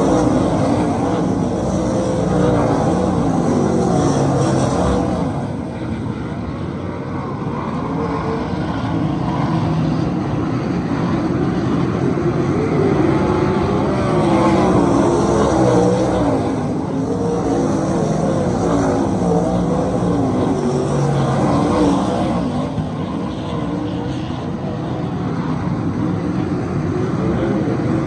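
A pack of 410 winged sprint cars racing, their methanol-burning 410-cubic-inch V8 engines revving up and down through the turns. The sound swells and eases every several seconds as the cars come past and move away.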